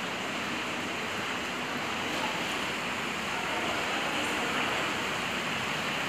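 Steady, even rushing noise like running water, the background of an indoor swimming pool building.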